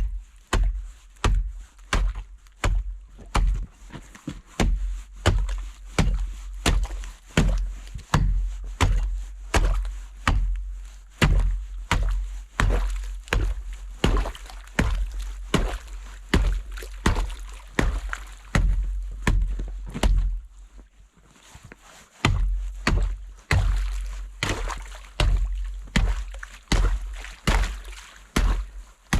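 Ice on frozen-over livestock drinking water being chopped open with a hand tool: a steady run of sharp strikes, about two a second, with a short pause about two-thirds of the way through.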